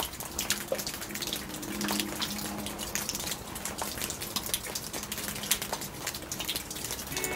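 Rain falling steadily, with many sharp nearby drips striking among the patter.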